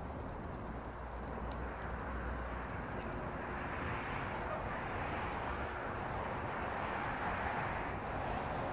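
Outdoor ambience: a steady hiss with an indistinct murmur of distant voices that grows louder toward the end, and a low rumble during the first few seconds.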